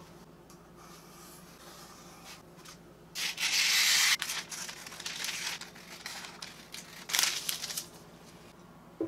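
Scissors cutting through a sheet of baking paper: after a quiet start, a loud rasping cut about three seconds in, then softer cutting noise, and a few sharp paper rustles a little past the middle as the cut-out circle is handled.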